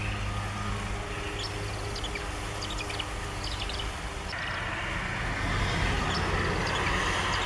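Small birds giving short, high chirps in quick clusters over a steady low hum; a little past halfway a broad rushing noise comes in and grows louder.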